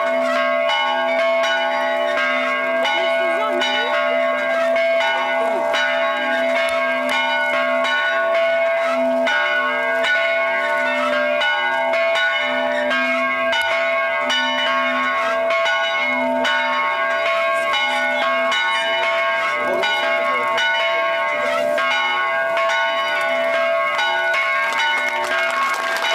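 Church bells ringing continuously, many strikes overlapping into a sustained ringing chord. Applause starts near the end.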